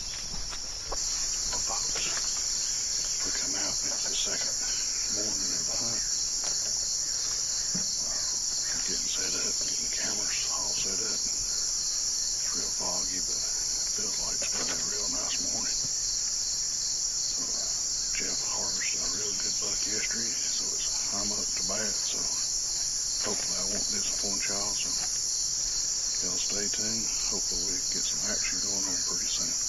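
Steady high-pitched chorus of crickets and other insects in summer woods. It comes in abruptly about a second in.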